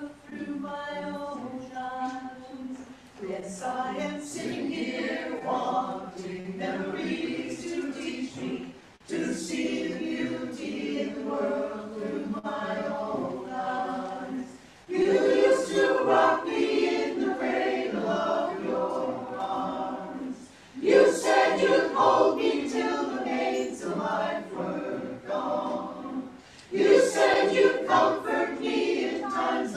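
Mixed adult choir singing, in phrases broken by short pauses for breath every few seconds, louder from about halfway through.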